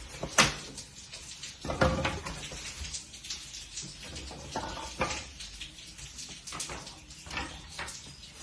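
A cardboard box holding a microwave oven being handled and turned over: a run of knocks, scrapes and rustles, the loudest about half a second in and again near two seconds.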